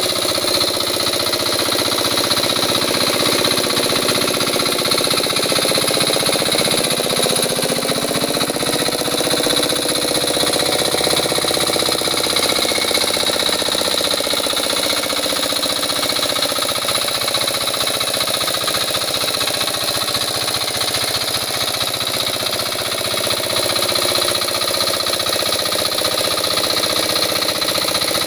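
Hand tractor's engine running steadily as it works through a muddy rice paddy. Its pitch wavers for a few seconds about a third of the way in.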